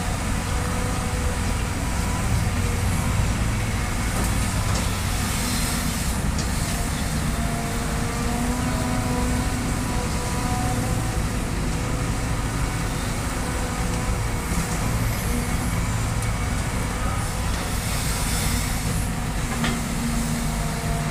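Caterpillar hydraulic excavator's diesel engine running steadily under load as it digs and loads soil into a steel dump-truck bed, with a sharp knock near the end.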